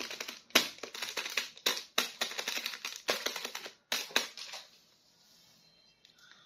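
Hard plastic being handled: a quick run of sharp clicks and crackles that stops about four and a half seconds in.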